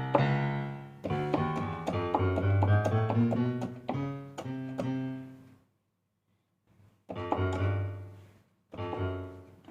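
Piano notes and chords played on a Nektar Impact LX49 MIDI keyboard through a piano sound, testing that the repaired keys now sound. The playing stops for about a second and a half around six seconds in, then starts again, with a brief pause near the end.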